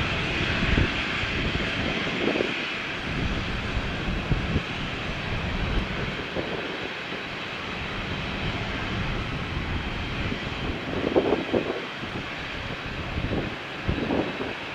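Boeing 767-300ER's twin turbofan engines running steadily, a hiss over a low rumble, the hiss easing off over the first few seconds. A few brief louder bumps come near the end.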